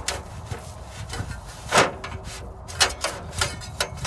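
Irregular knocks and rustling scrapes of net wrap being pushed down through a round baler's duckbill with a net wrap tool, the loudest about two seconds in.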